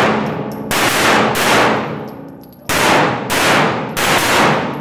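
Semi-automatic pistol firing five shots, each ringing on in the echo of a concrete-walled indoor range: two shots, a pause of over a second, then three more in quick succession.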